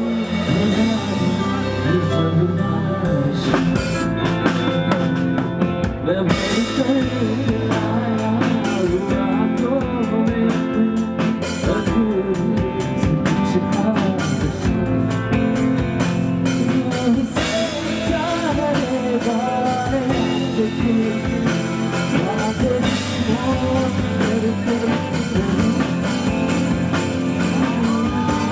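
A live band playing a song: drum kit, guitar and keyboard, with a man singing over them.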